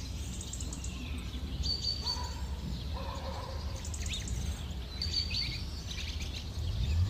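Small birds chirping and twittering outdoors, with the same short high call twice, about three seconds apart, over steady low background noise.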